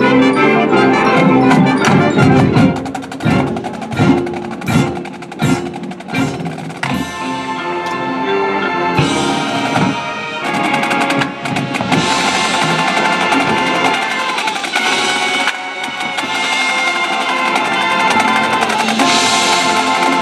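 High school marching band playing: held full-band chords, broken about two seconds in by a string of sharp percussion hits with short gaps between them, then held chords again that grow brighter toward the end.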